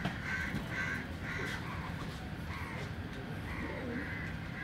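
Crows cawing: a string of short, repeated caws, some coming in quick pairs with brief pauses between groups, over a steady low background rumble.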